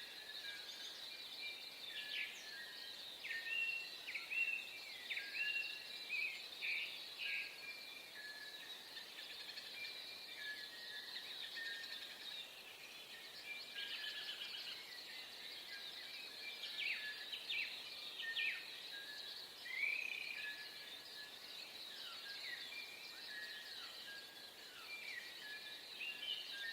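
Dawn chorus of several wild birds singing together: a dense steady chatter of high chirps, with louder short whistles and chirps from nearer birds scattered throughout.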